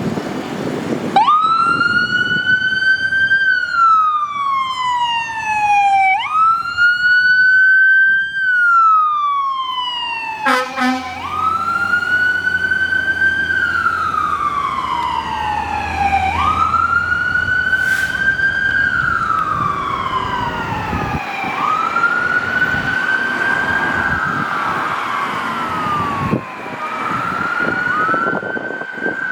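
Fire engine siren on the wail setting, sweeping up quickly and gliding slowly down in cycles of about five seconds, from a 2016 Pierce Impel pumper responding to a call. About ten seconds in, a brief, harsh, buzzing blast cuts in.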